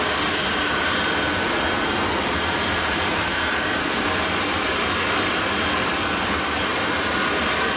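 Jet airliner engines running: an even, steady rushing noise with faint high whining tones that does not change.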